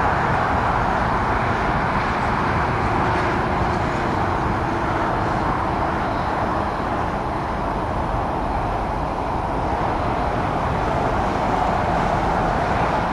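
Steady, even roar of distant jet engine noise over outdoor background noise at an airport, with no distinct events.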